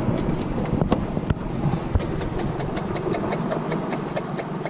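Wind buffeting the microphone over the wash of surf, the low rumble easing about three seconds in. A run of quick, light clicks, several a second, starts about two seconds in.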